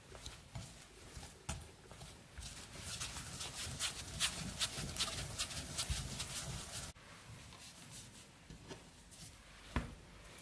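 Hands kneading soft, unleavened puri dough in a bowl: a quick run of short, sticky pats and slaps that stops abruptly about seven seconds in. After that come only faint handling sounds and a single tap near the end.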